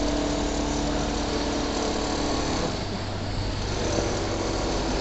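Richpeace single-needle automatic quilting machine running at speed, set to 2200 rpm. It gives a steady mechanical hum over the needle's fast stitching.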